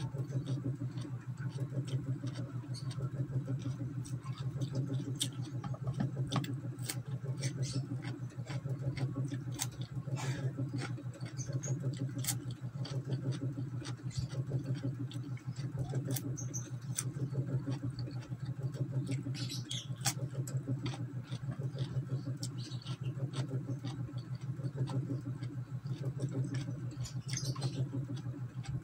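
Close-mouthed chewing of crisp raw cucumber: an even rhythm of crunchy bites, about one chew a second, over a steady low hum.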